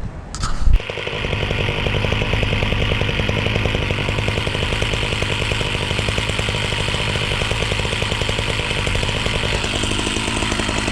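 Echo CS-590 Timberwolf two-stroke chainsaw running steadily, coming in suddenly just under a second in after a short knock.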